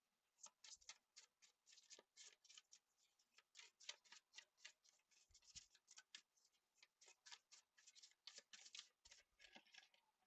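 Tarot cards being shuffled by hand: a quiet, irregular run of short card clicks and flicks.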